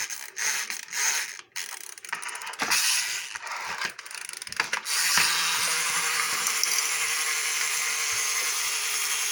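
Toy magnetic fishing game turning, its plastic gears clicking irregularly at first, then settling about five seconds in into a steady whirring.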